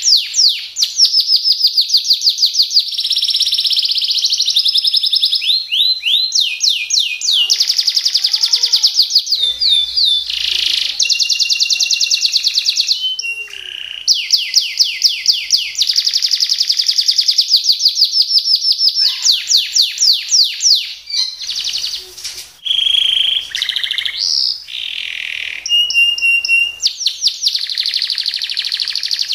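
Canary singing a long, continuous song. It strings together rapid trills of repeated sweeping notes and steady buzzy rolls, changing phrase every second or two, with only a few brief pauses.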